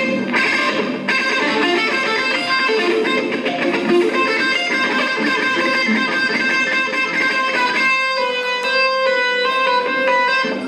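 Live punk band playing, the electric guitar to the fore with a run of quick picked notes that settle into longer held notes near the end.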